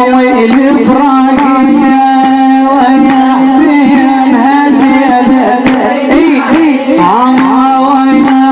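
A mullaya, a woman lament reciter, chanting a Shia mourning elegy in a wavering, ornamented melody over a steady low held note. Short beats run through it, typical of women's latam (chest-beating).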